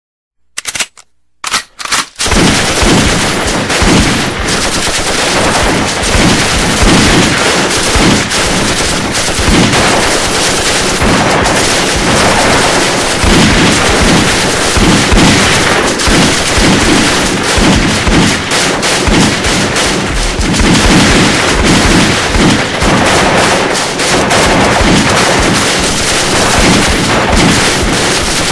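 Gunfire from a mix of guns: a few separate shots, then dense, continuous firing with machine-gun bursts layered over pistol and shotgun shots.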